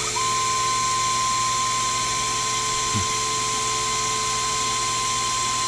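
Sherline CNC mill running, with steady spindle-motor noise. A steady whine from a stepper motor driving the table starts just after the beginning and cuts off near the end.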